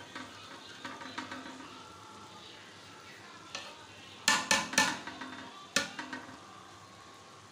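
Metal slotted spoon stirring cooked rice and chickpeas in a metal pot, scraping and rustling through the grains, with a faint steady hiss underneath. It knocks sharply against the pot several times between about four and six seconds in.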